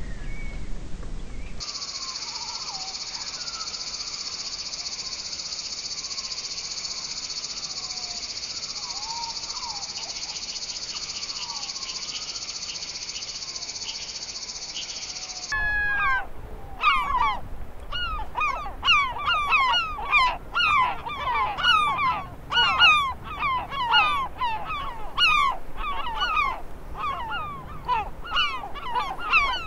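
A steady high-pitched insect drone with faint bird whistles, which about halfway through gives way to a flock of crested terns calling: many loud downward-sweeping cries, overlapping at about two a second.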